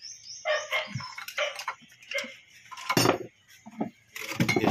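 Metal hand tools clinking and knocking against the cylinder head of a Toyota 1C diesel engine under overhaul, in scattered short clinks with a sharper strike about three seconds in and busier clatter near the end.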